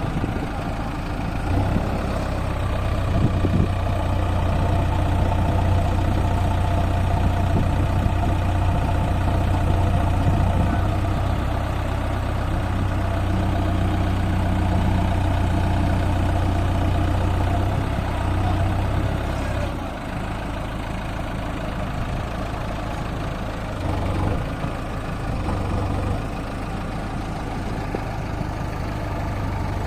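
Heavy diesel engine running steadily with a deep hum; about twenty seconds in the deep hum drops away and the engine runs on at a lower level.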